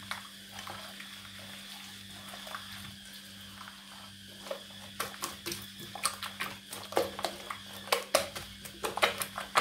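A hand sloshing and squelching a runny batter of eggs, sugar and oil around a glazed earthenware bowl. It is soft at first, then from about halfway it becomes a quick run of wet splashy strokes. A steady low hum runs underneath.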